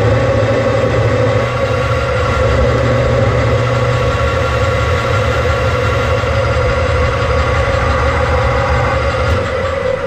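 Metal lathe running with its chuck spinning a steel shaft: a steady machine hum with a strong whine and several higher tones. About nine seconds in the upper tones fall away as the lathe winds down.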